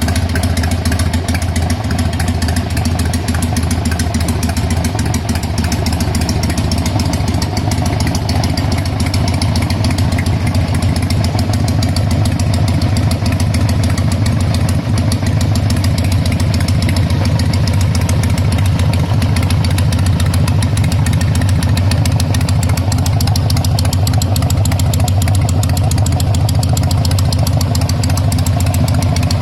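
2003 Harley-Davidson Sportster's air-cooled V-twin engine idling steadily.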